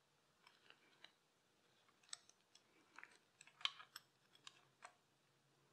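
Faint, scattered metallic clicks of a steel roller chain and its sprocket being handled with gloved hands while being lined up on an engine's oil pump. The clicks come about nine times at uneven intervals, the sharpest about two-thirds of the way in.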